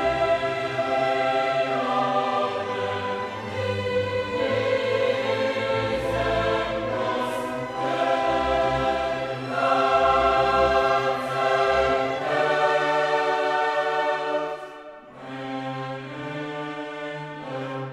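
Background music: an orchestra with a choir singing sustained chords that change every second or two.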